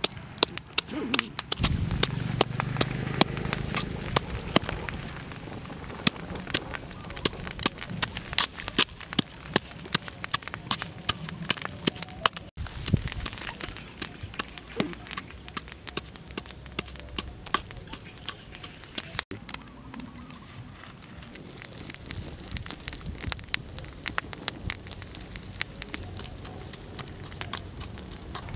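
Wood fire crackling with frequent sharp pops, mixed with the dull knocks of a wooden pestle pounding chillies and garlic in a coconut-shell bowl.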